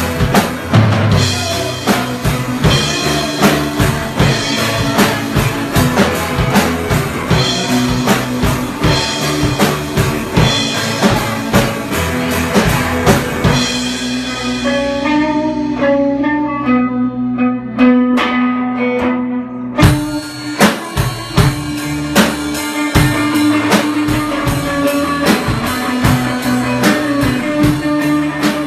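A band plays live on electric guitars over a drum kit. About halfway through, the drums drop out and the guitars play alone for several seconds. Then the whole band comes back in together with a hit.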